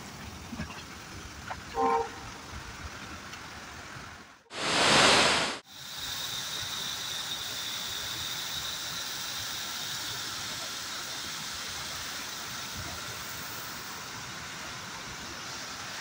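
Steady rushing noise of a large monsoon waterfall, with a faint steady high tone over it. Before it comes a brief toot about two seconds in, then a loud burst of rushing noise lasting about a second.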